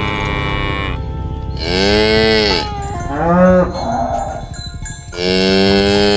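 Cows mooing: several long moos one after another, each one rising and falling in pitch, with a shorter one in the middle.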